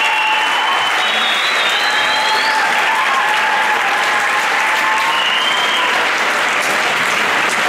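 Audience applauding steadily, with a few high whistles over the clapping.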